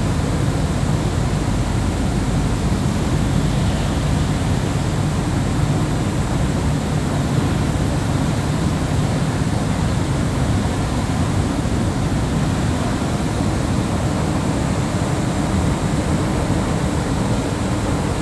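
Long metro-station escalator running steadily: a continuous low rumble from its moving steps and drive, with a faint thin high tone above it.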